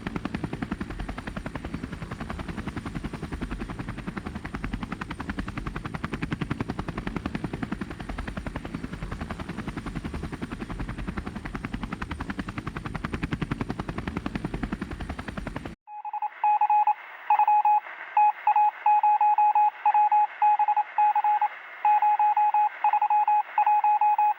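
Robinson R22 Beta II helicopter in flight: steady rapid rotor chop and engine noise with a faint high whine. About two-thirds of the way through it cuts off abruptly, and a series of electronic beeps in an irregular on-off pattern follows.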